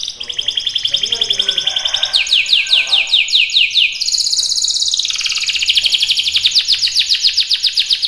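Canary singing a continuous song of rapid trills. About two seconds in it changes to a slower run of falling notes, about six a second, then returns to a fast trill at about four seconds.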